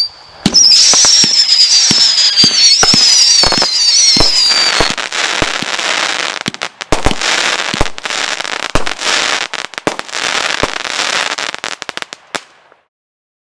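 Brothers 'Saturday Night Special' 36-shot 500-gram firework cake firing in quick succession: sharp reports and dense crackling, with a wavering, falling whistle over the first few seconds. The sound cuts off abruptly near the end.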